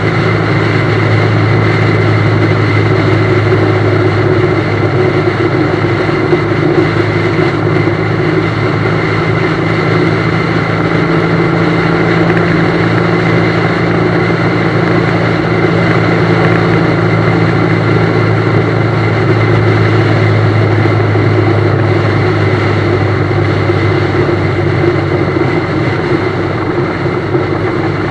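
BMW GS motorcycle engine running at a steady speed on the road, under an even rush of wind and road noise.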